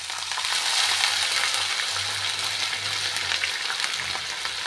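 Chopped ginger sizzling in hot sesame oil in a wok: a steady frying hiss full of fine crackles, which jumps up as the ginger goes in and is strongest over the first couple of seconds.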